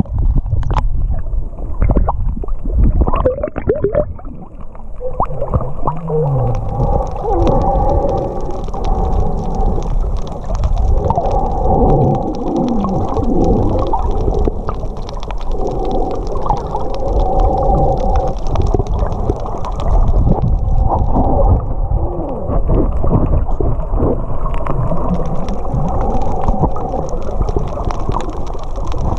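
Humpback whale song heard underwater: a series of long calls, some held on a steady pitch and some sweeping up and down, over the low rumble of water moving around the camera.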